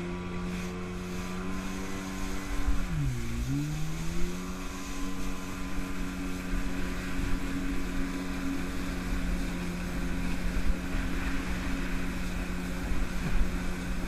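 Jet ski engine running at a steady pitch, which dips sharply about three seconds in and climbs back within a second as the throttle is eased and reopened. A steady rush of wind and water runs underneath.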